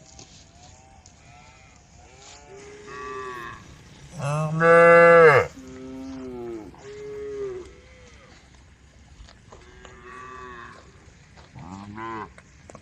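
Cows mooing, about five calls one after another, the loudest and longest about four seconds in.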